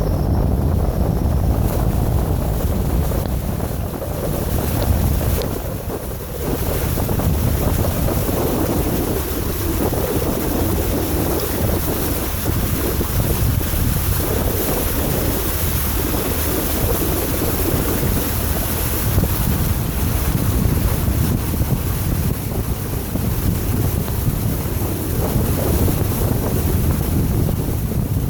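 Vehicle driving along a flooded road: a steady loud rushing of water and low rumble, easing briefly about five seconds in.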